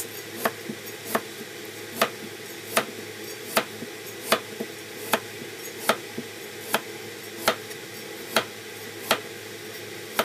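Kitchen knife chopping a carrot into chunks on a cutting board: a steady run of sharp knocks, about one every 0.8 seconds, over a steady background hum.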